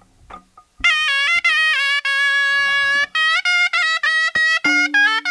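Nepali shanai, a double-reed wind instrument, starting a folk tune about a second in: a loud, reedy melody of held notes and quick note changes, with short breaks between phrases.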